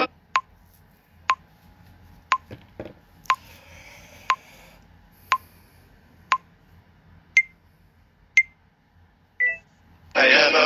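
TikTok recording countdown timer beeping once a second: seven short lower beeps, then two higher beeps and a slightly longer high final beep as the count reaches zero.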